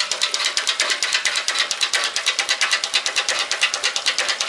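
Powerwise 4042 double diaphragm pump running, its strokes making a rapid, even clatter of several clicks a second.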